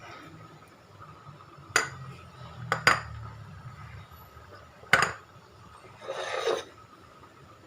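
A cooking utensil knocking sharply against a pot four times, then a short scrape in the pot near the end.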